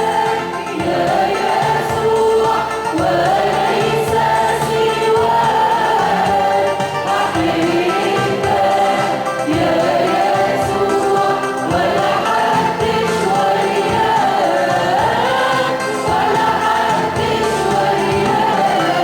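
Arabic Christian hymn sung by voices with instrumental accompaniment. Long held notes glide between pitches without a break.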